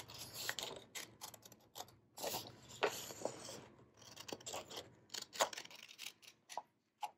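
Scissors cutting through printer paper: a series of short snips with crisp clicks of the blades, coming in uneven runs with pauses between.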